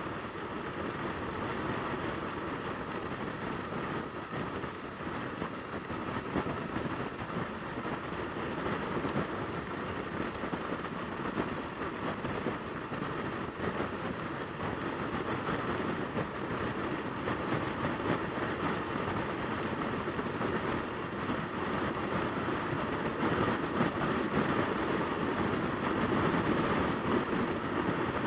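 Yamaha YZF600R Thundercat's inline-four engine running at motorway cruising speed, mixed with steady wind rush over the microphone, growing a little louder over the second half.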